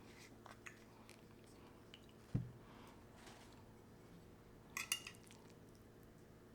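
Faint clinks of utensils on a plate during a meal, with a dull thump about two and a half seconds in and a quick cluster of sharper clinks near five seconds.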